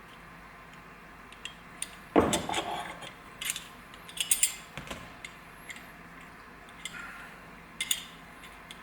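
Small metal parts of an emergency brake handle clicking and clinking as they are handled and worked together by hand, with one louder knock about two seconds in.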